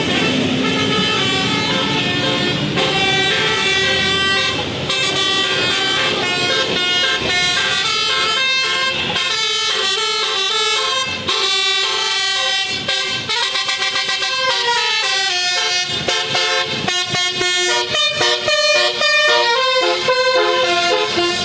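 A bus's musical 'telolet basuri' air horn playing a long, fast melody of stepped notes. For about the first nine seconds the bus's engine is heard running low underneath, then it drops away while the horn tune goes on.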